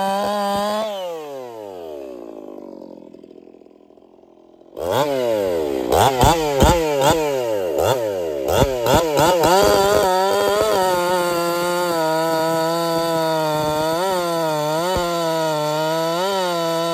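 Echo two-stroke chainsaw running .325 chain at full throttle, then let off so the engine winds down and fades. About five seconds in it comes back suddenly and is revved up and down several times, then from about ten seconds in runs steadily at full throttle cutting through a log, dipping slightly a few times under load.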